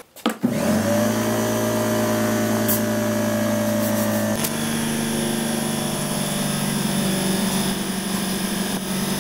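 Portable electric air compressor's motor and pump starting up and running steadily, as the hose is drawn on for blowing out carburetor jets. The hum drops slightly in pitch about four seconds in, with a faint hiss of air.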